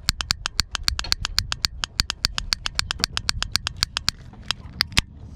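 Ring-pull tab of an aluminium energy-drink can flicked rapidly with a fingertip: a fast run of sharp clicks, about eight a second, thinning out near the end.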